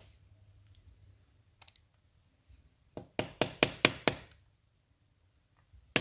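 A quick run of about six sharp metal taps, then one more just before the end: a small screwdriver tapping the locking tabs of a small DC lock-actuator motor's steel can back over its plastic end cap, closing the motor up after a brush and commutator rebuild.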